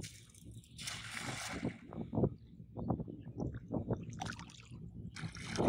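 Cast net thrown into shallow floodwater: a splashing hiss about a second in as the net hits the water, followed by short sloshing splashes of legs wading through the water.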